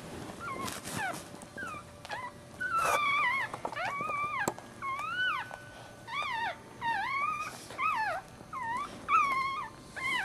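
Newborn Maltese puppy crying in a string of short, high, squeaky calls, each rising and falling in pitch. The calls come more steadily and louder from about three seconds in.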